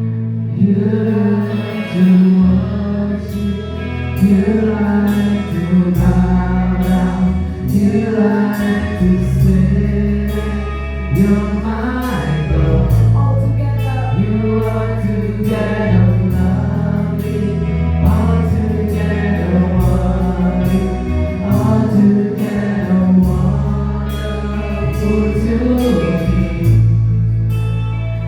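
A live worship band and several singers performing a praise song together, with voices over held bass notes and a steady beat.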